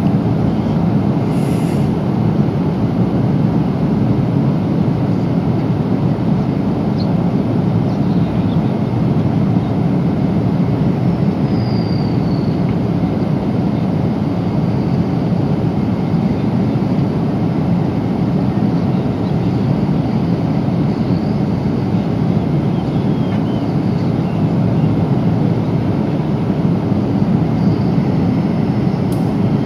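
Steady cabin noise of a Boeing 777-300 in cruise: a loud, even rush of airflow and engine noise heard from inside the passenger cabin.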